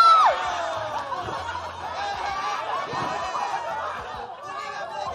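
A loud, high-pitched cry that falls in pitch right at the start, then many voices laughing and chattering together.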